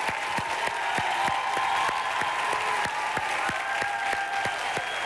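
Studio audience applauding, with a steady beat of about four low thumps a second running under the clapping.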